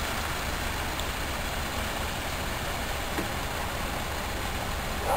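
Steady low engine rumble of a heavy-transport convoy and its escort van moving off along the road.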